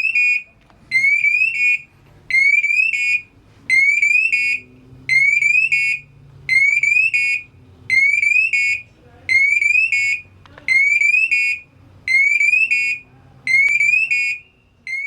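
Firefighter's man-down alarm (PASS device) on a breathing-apparatus harness, sounding in full alarm. A shrill electronic signal repeats about every second and a half, each burst two quick rising chirps followed by a short pulsing tone. It is the alert that the wearer has stayed motionless for 25 seconds and may be down.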